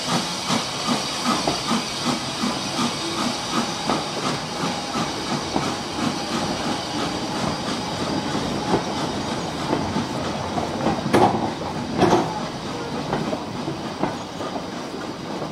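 Saddle-tank steam locomotive working a train: regular exhaust beats about three a second over steady steam hiss, fading away over the first half, then rolling stock running over the rails with two loud clanks about eleven and twelve seconds in.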